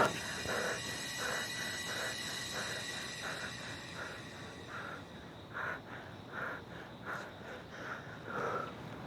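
Railroad crossing warning bell ringing in a steady, even clang about two and a half times a second. A high steady ringing tone above it fades out about halfway through.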